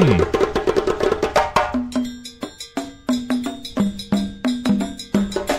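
Instrumental music with a fast, clicky wood-block-like percussion rhythm and short repeated pitched notes.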